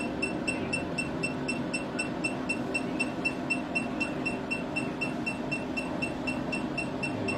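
Facial laser treatment machine beeping evenly and quickly, about four short high beeps a second, one for each laser pulse, over a steady low hum.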